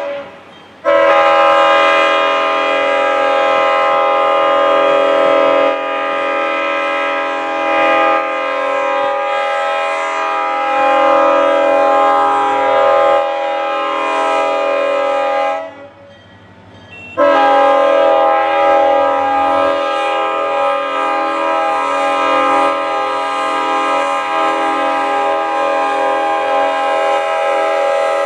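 A five-chime air horn on an EMD SD40-2 freight locomotive sounding a chord in two long blasts: the first held about fifteen seconds, then after a short break a second blast that continues. The approaching train's engines and wheels rumble faintly underneath.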